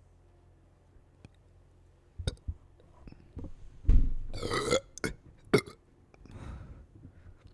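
A person's deep belch, loud and drawn out for about a second, starting about four seconds in. A few short sharp sounds come just before and after it, and a softer, breathier sound follows near the end.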